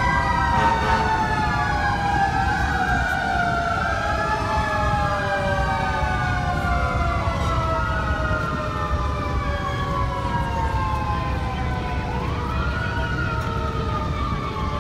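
Several fire truck sirens sounding at once: some wind slowly down in pitch throughout, while another repeatedly rises and falls, over a low rumble.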